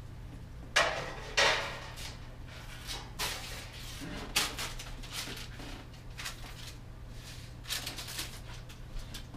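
A series of clatters and knocks as items are moved about on top of a refrigerator and set down on the counter. The two loudest come about a second in, with a few smaller ones later, over a steady low hum.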